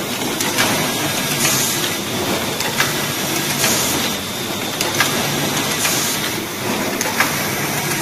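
A full-automatic DC connector cable soldering machine running: a steady mechanical noise, with several sharp clicks and a few short hisses as its mechanisms move.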